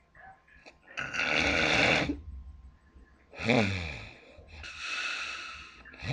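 A woman snoring loudly: a long rasping breath, then a short snort whose pitch drops, then another long rasping breath.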